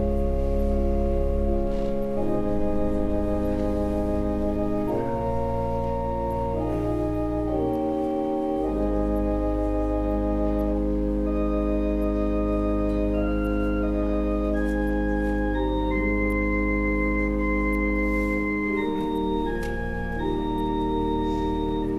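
Organ playing slow, sustained chords over deep held pedal notes, the chords changing every second or two.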